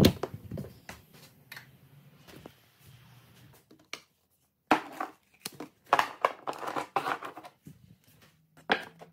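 A door knob turning and its latch clicking open, then bursts of paper rustling and crinkling as painted sheets are handled.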